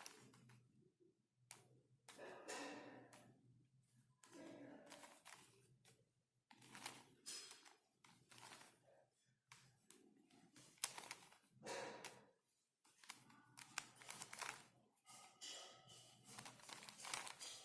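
Faint plastic clicking and clacking of a 5x5 Ultramorphix twisty puzzle being turned and handled, in irregular short bursts.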